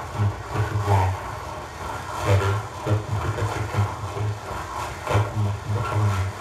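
Experimental electronic music played over loudspeakers: a low buzzing bass tone chopped into short, uneven stuttering pulses, with scraping, clattering noise strokes above it.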